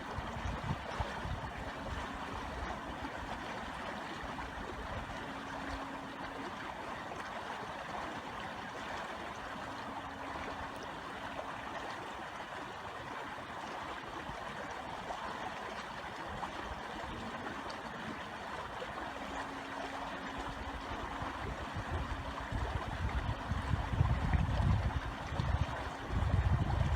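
Brook water running steadily. A low rumble comes in near the start and again more strongly over the last few seconds.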